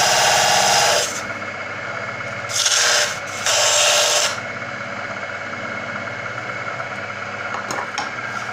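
Homemade disc sander with a Velcro-backed sanding disc, its motor running while wood is ground against the disc. The loud sanding stops about a second in, comes back in two short passes a few seconds in, and then the motor runs on its own with a steady hum.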